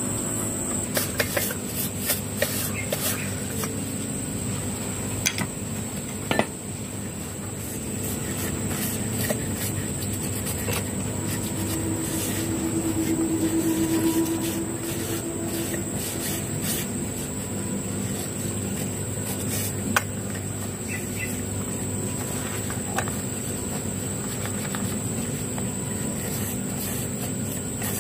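Steady background of a high, even insect drone and a low hum that swells briefly about halfway through, with scattered light clicks and knocks from hands and a rag working over a chainsaw body.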